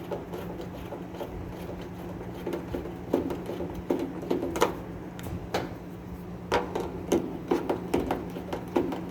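A Phillips screwdriver working screws out of a Roper washing machine's panel: irregular clicks and knocks, coming thicker from about three seconds in, over a steady low hum.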